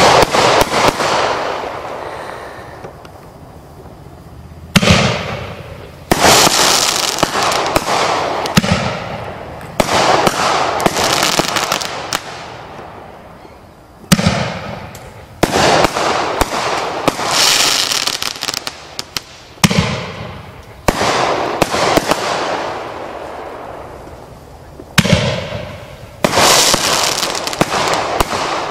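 Black Cat Quad Power consumer firework cake firing its shots: sharp reports every few seconds, often two close together, each followed by dense crackling that fades away over a few seconds.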